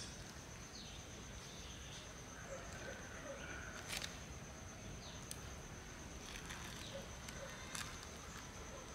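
Faint outdoor ambience: a steady high insect drone, with a few bird chirps and a few soft clicks from hands working the soil and the plastic basket.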